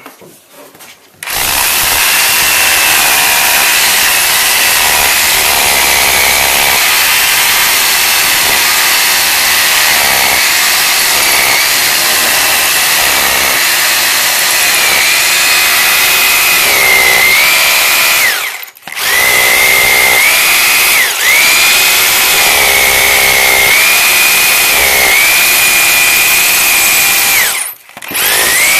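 Electric drill with a long 400 mm bit boring down into a concrete wall footing. It starts about a second in and runs steadily with a high, wavering whine. It stops briefly twice, about two-thirds of the way through and again near the end, and starts up again each time.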